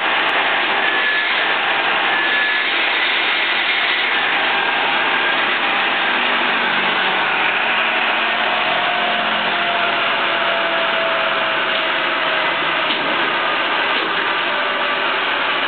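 Horizontal boring machine running steadily, a constant mechanical whir with faint whining tones, as the boring head is withdrawn from the freshly finished bore.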